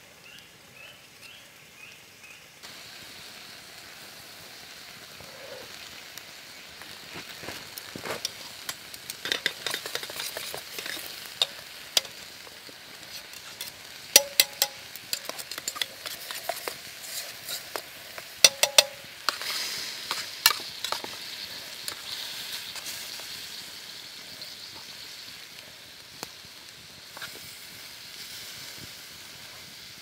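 Food frying in a pan on a campfire: a steady sizzle that starts a couple of seconds in. Through the middle a metal utensil clinks and scrapes against the pan, with two clusters of sharp, ringing clinks.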